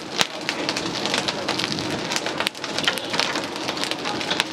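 Stir-frying in a wok over a charcoal stove: steady sizzling, with a metal spatula clanking and scraping against the wok.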